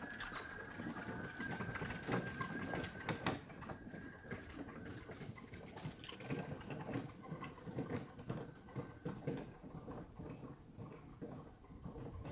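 Ryobi electric riding mower's drive motor whining steadily as it pulls away, the whine fading over the first few seconds, over irregular knocking and rattling from the log cultipacker and its wooden frame dragging over the soil.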